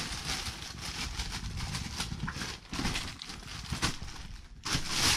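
Clear polythene wrapping crinkling and rustling in quick irregular crackles as a hand pulls a tank bag out of it, loudest near the end.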